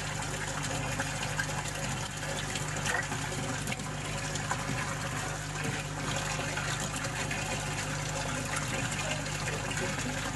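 Water splashing and gushing steadily in a koi fry tank with bubbling aeration, over a steady low hum.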